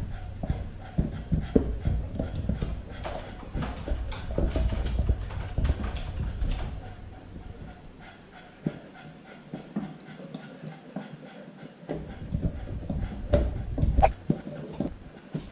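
Husky puppy chewing and gnawing on the foam ankle rollers of an inversion table, heard up close through a camera strapped to her back: irregular clicks and scraping rubs. The chewing eases off for a few seconds past the middle, then starts again.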